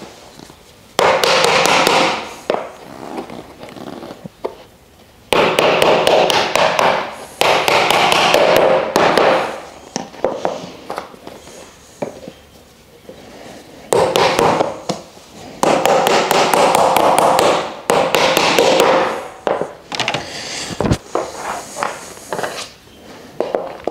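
Wooden plant-stand parts being knocked and worked together by hand during assembly: several bursts of rapid tapping and knocking, each a second or two long, with one heavier single thump near the end.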